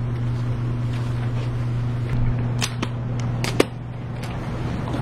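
A steady, even low hum, like a motor or fan unit running, with a few sharp clicks and taps about two and a half to three and a half seconds in.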